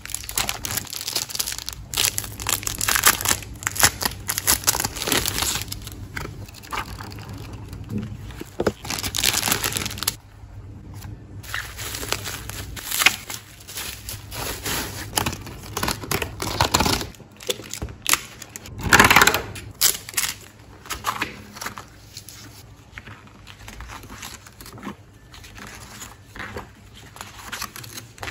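Bubble wrap and plastic packaging crinkling and rustling in the hands as they are pulled open, in irregular bursts, loudest about two-thirds of the way through.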